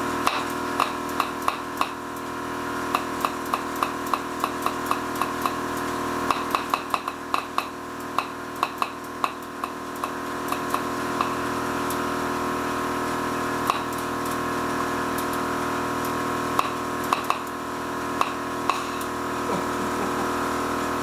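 Steady mechanical hum under repeated sharp metallic clicks and knocks from hand tools as wheels are fitted to the car; the clicks come in quick runs early on and thin out later.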